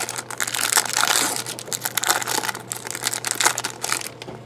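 Plastic trading-card pack wrapper being torn open and crinkled in the hands: a dense, irregular crackle.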